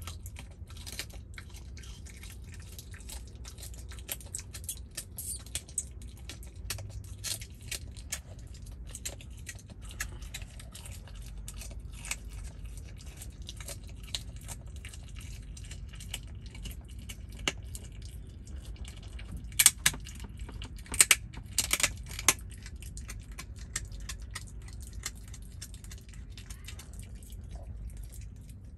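Red fox chewing on a raw chicken leg: a long run of short crunching bites, with a cluster of louder sharp crunches about twenty seconds in, over a low steady rumble.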